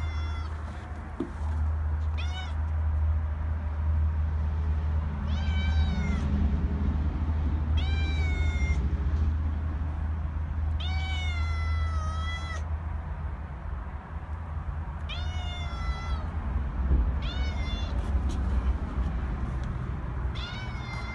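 Tabby cat meowing over and over, about seven meows a few seconds apart, over a steady low rumble.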